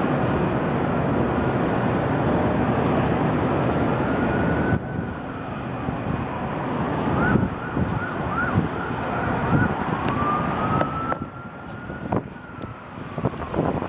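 An emergency-vehicle siren from the streets below, wailing, breaking into a few quick yelps about halfway through, then wailing again. For the first few seconds it sounds through heavy wind on the microphone.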